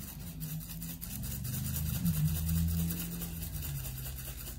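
Dry seasoning rattling out of a plastic shaker bottle onto raw steak, under a low steady hum that swells about two seconds in.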